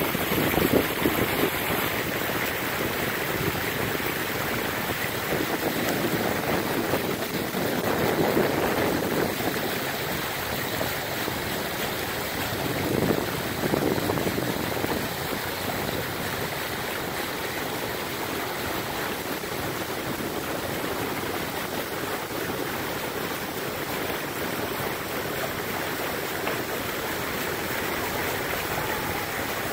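Water rushing steadily along the bow of a moving boat as it pushes through the river, swelling briefly a couple of times.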